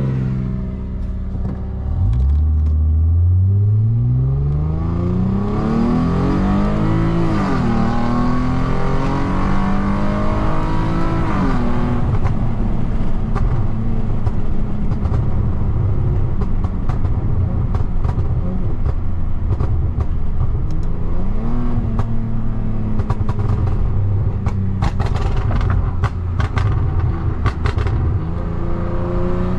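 Tuned Lexus IS250's 2.5-litre V6 and exhaust accelerating hard, the revs climbing and dropping back at two upshifts, then running steadily. Near the end the exhaust crackles and pops in quick bursts on the overrun, the pops-and-bangs map of the M-Force ECU tune.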